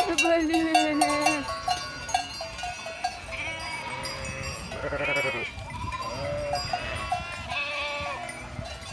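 A flock of sheep and lambs bleating, many overlapping calls, some of them the higher bleats of lambs, with bells clanking among the animals.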